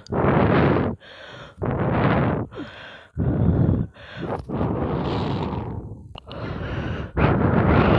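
Loud heavy breathing close to the microphone: a noisy breath comes about every one and a half seconds, with one longer drawn-out breath about halfway through.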